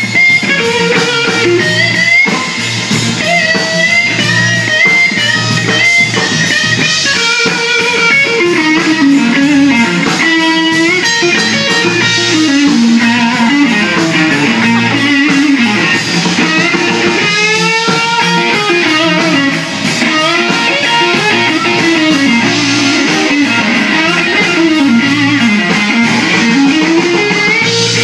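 Live blues band playing. The lead electric guitar plays single-note lines with bent notes over bass guitar and drums.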